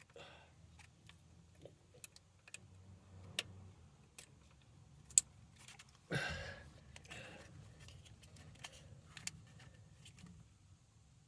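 Scattered light metallic clicks and clinks of hand tools and parts being handled, with one short scrape about six seconds in.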